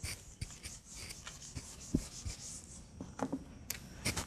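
A whiteboard being wiped with an eraser: repeated scratchy rubbing strokes across the board, with a few light knocks.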